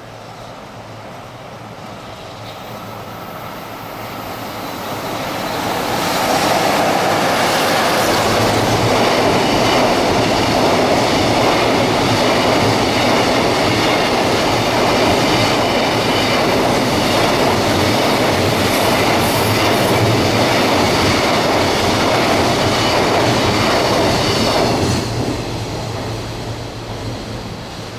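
EF66 0-series DC electric locomotive and its freight train passing at speed. The sound builds over about six seconds, holds as a steady loud run of wheels and wagons on the rails for nearly twenty seconds, then falls away quickly near the end.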